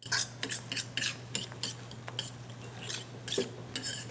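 A metal fork scraping and clinking rapidly and irregularly against a de Buyer Mineral B carbon steel egg pan, stirring eggs as they start to set. A steady low hum runs underneath.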